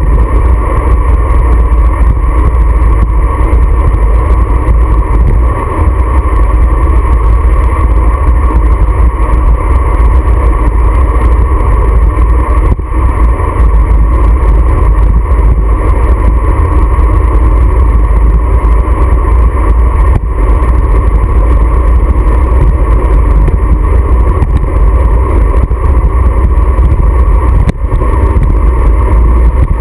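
Wind buffeting the microphone of a handlebar-mounted GoPro on a moving road bicycle: a loud, steady rumble.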